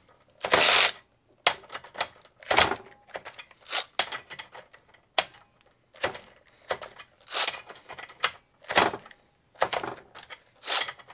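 Makita CXT 12-volt cordless ratchet run in short bursts, about one a second, against a bolt torqued to about 35 ft-lb, working to break it free.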